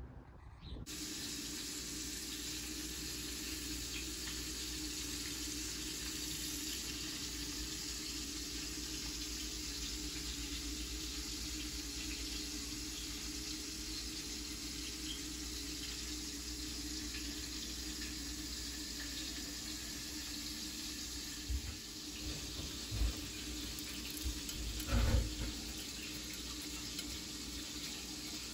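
Tap water running steadily into a sink, with a few soft thumps near the end.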